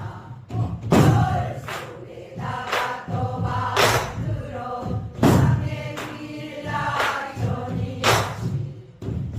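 Pansori singing in jungjungmori rhythm, accompanied by strikes of a buk barrel drum at irregular intervals of one to two seconds.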